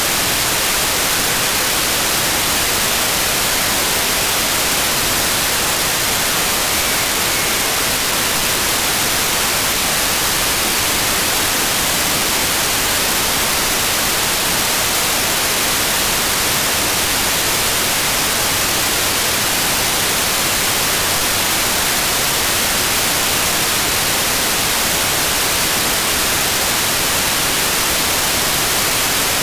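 Steady hiss of FM receiver static from a software-defined radio tuned to the ISS's 145.800 MHz amateur downlink, with no signal left to demodulate as the station sinks toward the horizon near loss of signal.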